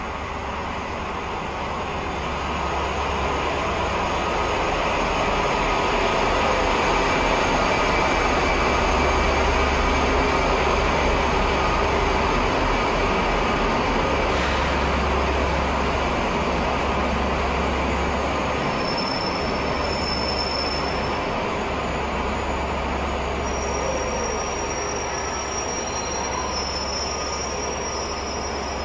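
Locomotive-hauled passenger train running into the station, its rumble growing over the first few seconds and then easing. About two-thirds of the way through, a thin high squeal joins in as it slows.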